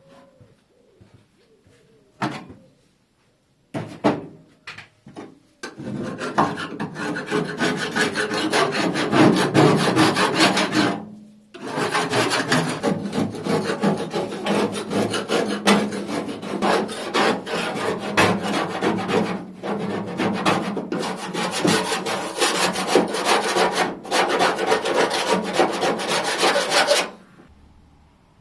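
Electric power tool abrading the metal bodywork, its motor running with a steady hum under a loud scraping rasp. A few short bursts first, then a long run, a brief stop, and a longer run that cuts off near the end.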